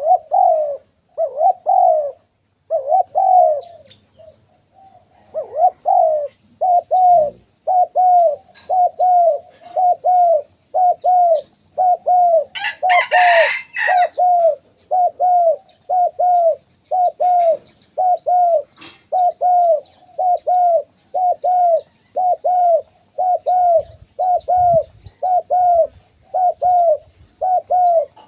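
Spotted dove cooing in a long, even run of short repeated coos, a little more than one a second, with a pause about four seconds in. A brief rustling burst comes about halfway through.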